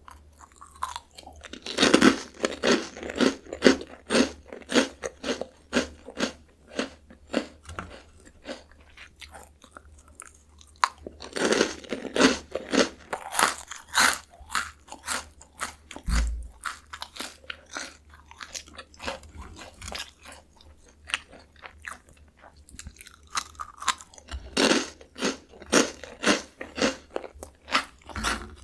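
Close-miked crunching and chewing of Jagalchi seafood-flavour snack crackers. Three bouts of loud, rapid crunching come about ten seconds apart, and quieter chewing runs between them.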